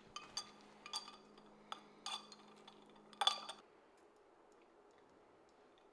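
A glass straw clinking against a drinking glass of iced coffee as it is stirred with ice: a few light, sharp clinks, the loudest about three seconds in.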